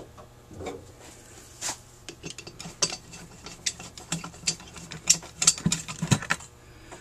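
Small metal clicks and taps of a screw being driven with a screwdriver into a Rochester 4GC carburetor, fastening the throttle body to the float bowl. The clicks come thick and irregular from about two seconds in, with a couple of heavier knocks near the end.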